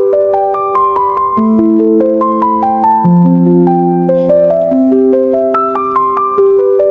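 Background music: a gentle melodic piano tune, notes played in flowing arpeggio-like runs over sustained bass notes.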